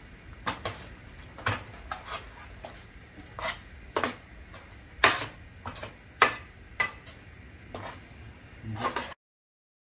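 A steel ladle scraping and knocking against a stainless steel kadai as thick tomato puree is stirred and fried, in irregular clinks and scrapes. It cuts off suddenly about nine seconds in.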